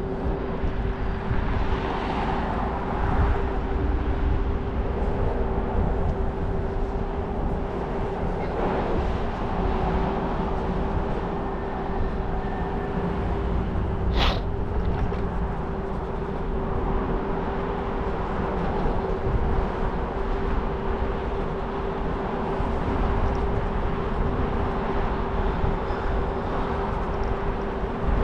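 Scooter riding along a path: a steady hum at one constant pitch over continuous wind and road rumble, with a brief high squeak about halfway through.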